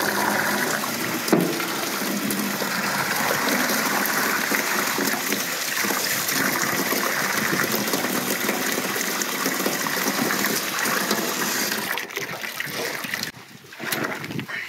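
A jet of water from a garden hose splashing into an old enamel bathtub partly filled with soapy water, a steady rush that breaks up and drops away near the end.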